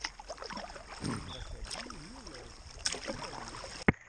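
Kayak paddle strokes: water splashing and dripping off the paddle blades and lapping along the hull as the kayak moves on a small river. A single sharp click comes near the end.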